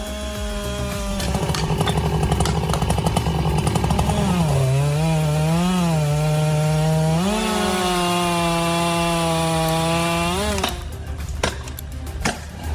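Chainsaw cutting into a large tree, running at high revs. Its pitch sags under load about four and a half seconds in, climbs back about seven seconds in, and cuts off near the end, followed by a few sharp clicks.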